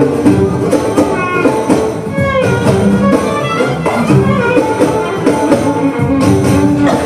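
Belly dance music: a melody line with curving, ornamented notes over a steady pattern of hand percussion.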